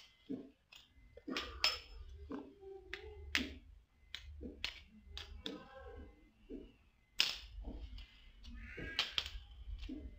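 Metal coins clicking as they snap onto a strong flat magnet and knock against each other on a tile floor: a string of short, sharp clicks.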